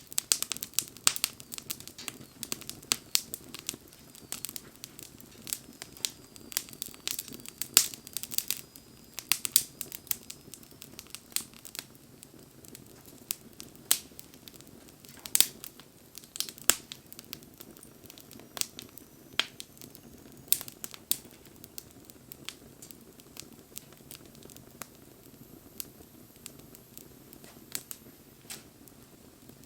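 Wood fire crackling, with many sharp pops and snaps over a low steady rush. The pops come thick and fast for the first ten seconds or so, then thin out to scattered ones.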